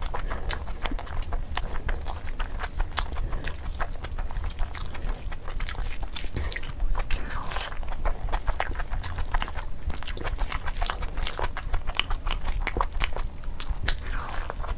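Close-miked eating with the hands: wet chewing, lip smacking and mouth clicks in a fast, irregular stream, over a steady low hum.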